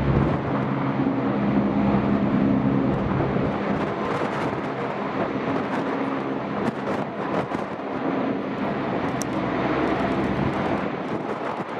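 Lockheed P-3-type four-engine turboprop running its engines and propellers: a steady drone of several low pitched tones over a broad roar. The tones fade after about three seconds and come back near the end.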